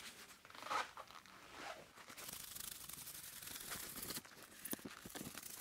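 Faint rustling and scraping from handling a 3,000-grit sanding disc and its pad at a plastic headlight lens. A soft steady hiss runs for about two seconds in the middle.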